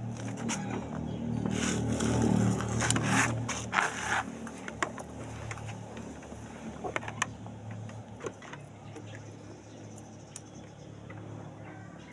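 Small motorcycle engine idling steadily with scattered light clicks and rattles. It is louder for the first few seconds, then runs quieter.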